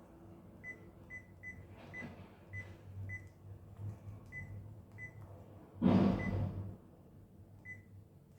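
A series of short, high electronic beeps at uneven intervals, with a louder clatter about six seconds in.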